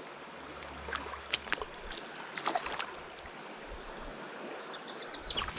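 Shallow river riffle running over stones, a steady rush of water, with a few short sharp clicks over it.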